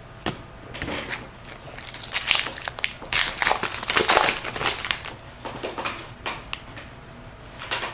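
Shiny foil wrapper of a 2012 Bowman Platinum trading-card pack crinkling and crackling as it is torn open by hand. The crackles come irregularly and are thickest a couple of seconds in, then thin out.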